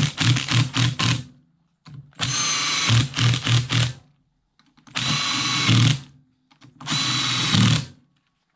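Cordless power driver running crankcase bolts into a Yamaha YFZ450R's engine cases in four short bursts of about a second each: a steady motor whine over a rapid low pulsing, with pauses between bolts.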